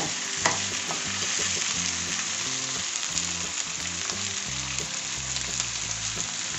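Sliced brinjal (eggplant) with onion and tomato sautéing in hot oil in a kadai: a steady sizzle. The metal spatula stirring the pieces gives a sharp tap against the pan about half a second in, and a few lighter scrapes.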